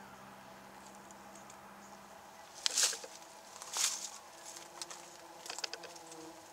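Faint steady hum of Australian native stingless bees at a log hive entrance, fading out about two and a half seconds in. Two loud, brief rustling noises about a second apart cut across it, followed by a scatter of quieter clicks.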